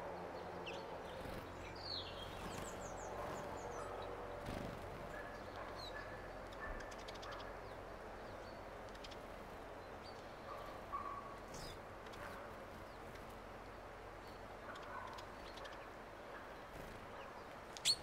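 Small birds calling with scattered short chirps and brief whistled notes over a steady outdoor background hiss. A single sharp click comes just before the end.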